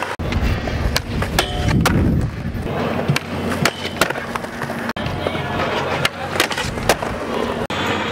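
Skateboard wheels rolling on concrete, with repeated sharp clacks of tail pops and board landings; the sound changes abruptly twice between clips.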